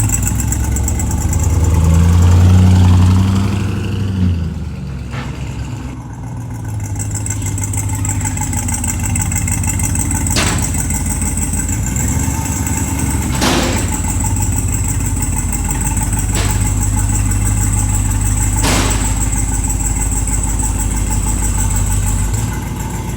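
Turbocharged truck engine blipped briefly, then idling steadily, with a few sharp clicks over the idle. The owner takes the sound for the engine breathing through a turbo wastegate that is stuck open.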